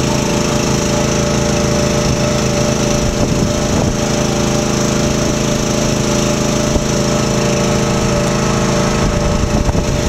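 Small gasoline engine of an AmeriQuip Eagle 40H towable boom lift running steadily, driving the hydraulics while the upper boom is lowered.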